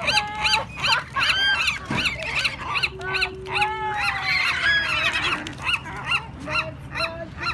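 A flock of birds crowding in to be fed bread, calling over one another in quick, repeated honking and squawking calls, several a second, with a few longer drawn-out calls among them.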